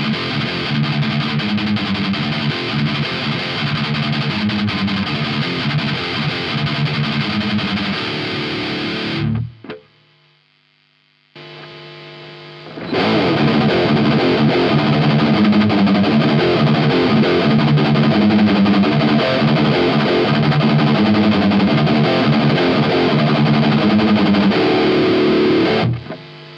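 Electric guitar playing a high-gain distorted rock riff through a Friedman-style amp-modelling preamp pedal. It stops about nine seconds in, a quieter chord rings briefly around eleven seconds, and about thirteen seconds in the riff starts again, slightly louder, through the second Friedman-style pedal on the loop switcher.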